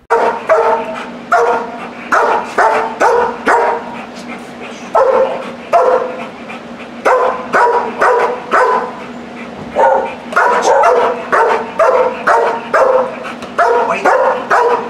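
Black German Shepherd dog barking repeatedly, about two barks a second, with a brief lull about four seconds in. This is cued barking at a helper who hides the dog's ball, which he barks for as a reward.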